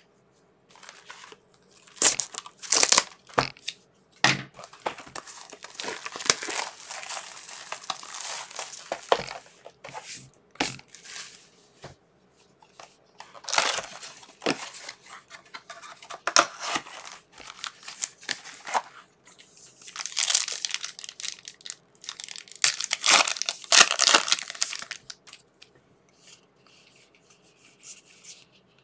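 Plastic wrapping on trading card packaging being torn open and crinkled by hand, in irregular bursts of tearing and rustling separated by short pauses, quieter near the end.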